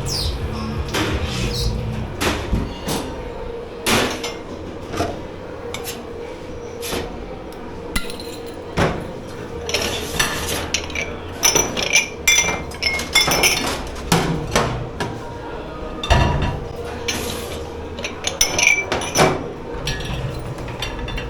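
Dishes, pots and cutlery being handled and stacked in a commercial kitchen dish pit: irregular knocks of crockery and metal, with bursts of ringing clinks about halfway through and again near the end, over a steady hum.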